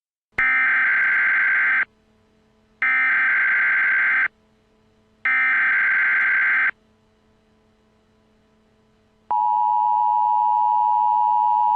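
Emergency Alert System SAME header: three identical data bursts of about a second and a half each, a second apart. About nine seconds in, the steady two-tone EAS attention signal begins and holds.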